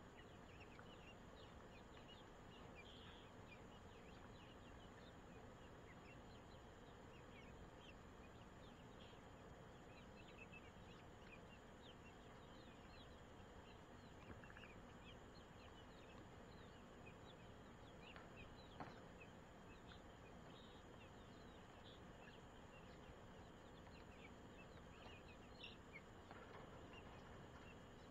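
Near silence: a faint steady hiss with scattered soft, high, short chirps throughout.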